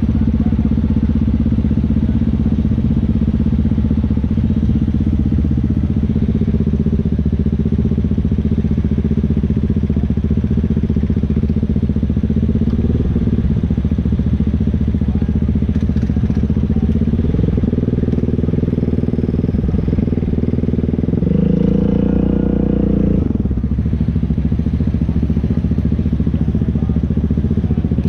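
ATV engine running steadily at low throttle, with a short rev lasting about two seconds roughly three-quarters of the way through before it settles back.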